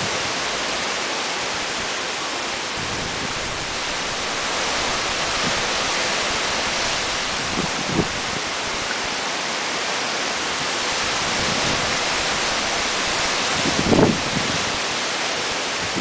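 Heavy rain from Typhoon Trami (2018) pouring down in strong wind: a loud, steady hiss. Brief low bumps of wind hit the microphone about eight seconds in and again near the end.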